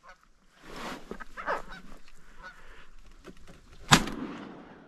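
Geese honking for about three seconds, then a single shotgun shot near the end, the loudest sound, with a short tail of echo.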